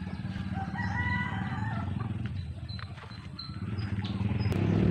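A rooster crowing about a second in, over a steady low rumble, with a few faint high bird chirps later.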